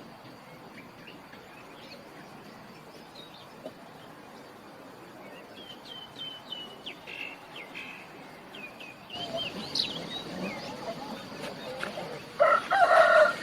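Small birds chirping in short, high tweets, with a loud chicken call breaking in near the end.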